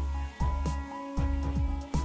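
Music with a heavy bass beat and repeated notes that slide down in pitch.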